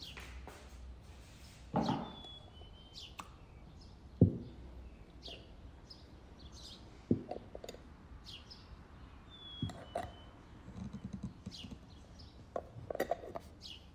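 A few separate knocks as a large aluminium pot and glass jars of preserves are set down on a cloth-covered table, the strongest about four seconds in. Birds chirp in the background.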